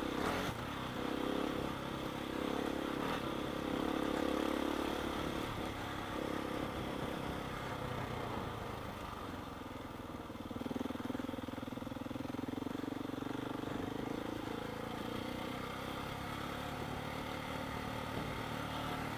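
Motorcycle engine running steadily under way on a dirt track, its note dropping a little about ten seconds in, with a constant rushing noise around it.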